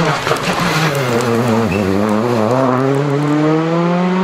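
Rally car's engine at speed: the note drops as the car slows for the bend, then rises steadily as it accelerates away.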